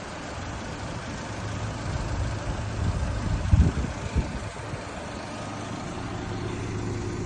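An engine running steadily with a low hum, under a haze of noise, with a loud low thump about three and a half seconds in.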